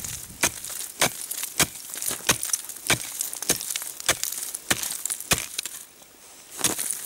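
Steel ice chisel striking river ice in a steady rhythm, about one blow every half second or so, chipping a hole through the ice, with a brief pause near the end.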